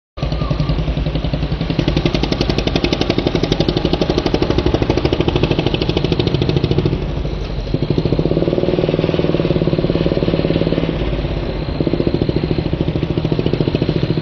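An engine running steadily close by with a rapid, even chugging. It eases slightly about halfway through and again near the end.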